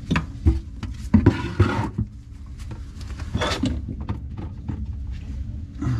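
Knocks and clunks of hand tools and plumbing parts being handled around a kitchen sink, several in quick succession at the start and a few more later, over a steady low hum.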